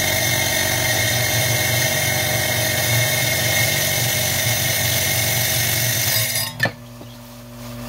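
Glass ring saw running and cutting through a sheet of stained glass: a steady motor hum with a high whine from the blade in the glass. About six and a half seconds in the noise drops abruptly, with a brief click, to a quieter hum.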